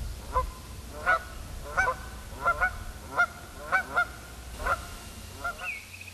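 Geese honking, about ten short calls at irregular intervals, over a low rumble.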